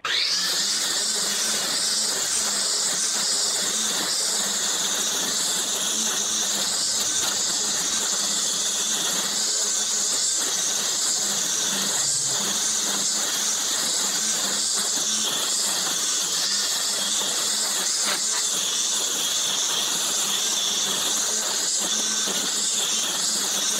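Ego battery-powered multi-tool with a string trimmer attachment running steadily, its nylon line whipping through thick kikuyu grass. It makes a high, hissing whine that wavers slightly in pitch, with a few sharp ticks from debris.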